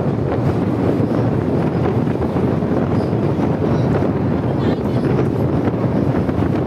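Steady rumble of a train running over a steel truss bridge, heard through an open coach window, with wind on the microphone.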